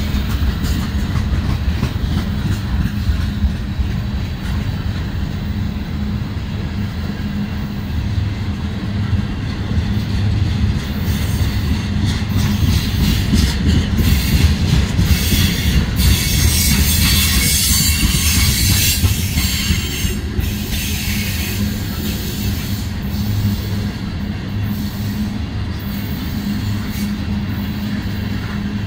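Loaded ethanol tank cars of a freight train rolling past close by: a steady rumble of steel wheels on rail with occasional sharp clicks. A high-pitched hissing wheel noise grows louder from about 12 to 20 seconds in, then fades back.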